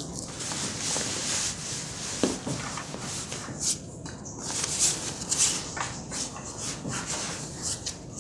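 Rustling of a backpack's waterproof parachute-fabric liner as it is gripped and pulled open, in irregular swishes, with one small knock a little over two seconds in.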